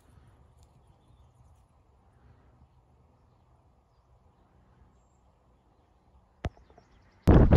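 Faint outdoor field ambience with a low rumble, broken by a single sharp click about six and a half seconds in. Near the end a loud rustling, wind-like noise on the microphone starts abruptly.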